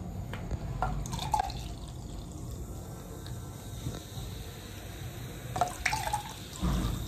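Sprite soft drink being poured, the sound of liquid filling a container, with two short clusters of sharper sounds about a second in and near six seconds.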